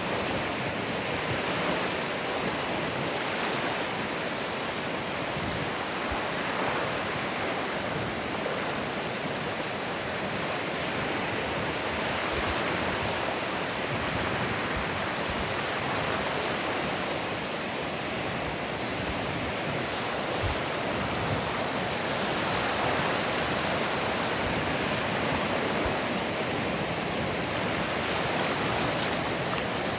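Ocean surf washing onto a beach, a steady hiss of breaking and receding water.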